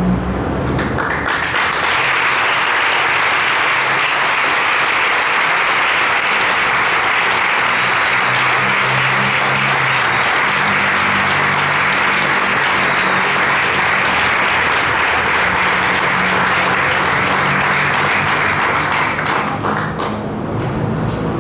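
Audience applauding steadily for about twenty seconds at the end of a song, starting about a second in and dying away near the end.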